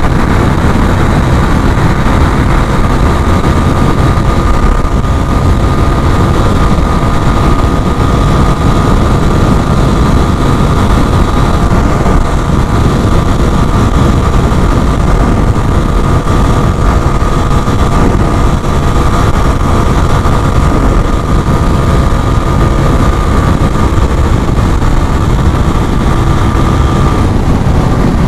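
Suzuki GS 150 motorcycle cruising at a steady speed, its single-cylinder four-stroke engine running under a heavy rush of wind over the camera microphone.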